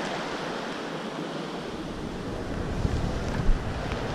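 Sea surf washing at the shoreline, with wind buffeting the microphone and rumbling more strongly from about halfway through.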